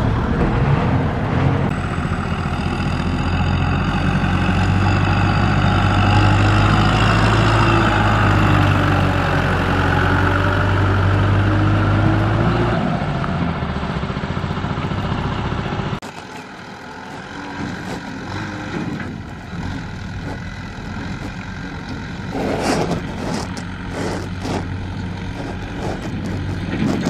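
A diesel farm tractor's engine running under load as it hauls a trailer loaded with rice sacks, its note rising and then falling. About two-thirds of the way through, the sound drops to a quieter tractor engine, with knocks and rattles from a trailer near the end.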